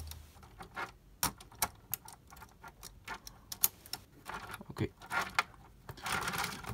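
Hard plastic Bakugan toy parts clicking and knocking as the Impalaton vehicle is pressed and fitted onto the Dharak figure by hand: an irregular run of light clicks, thicker near the end.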